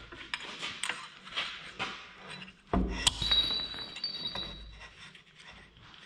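Steel parts clinking and tapping as a boom pin is worked into a skid steer's boom pivot. About three seconds in, a dull knock and a sharp metallic clink ring briefly.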